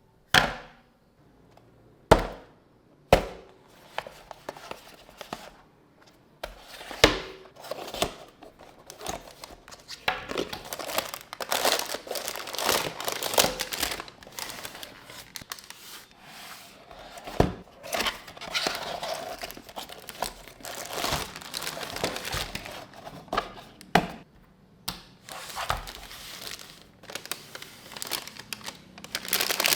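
Plastic packaging crinkling and rustling as it is handled and unwrapped. There are a few sharp knocks in the first several seconds, then steadier crinkling from about a third of the way in, broken by occasional clicks.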